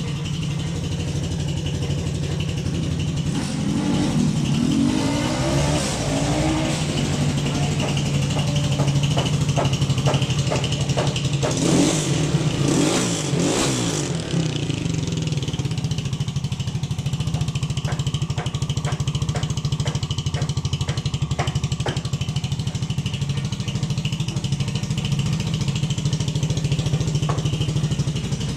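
Gato CG-250 motorcycle's single-cylinder four-stroke engine idling steadily, briefly revved up and let back down twice, about four seconds in and again near the middle.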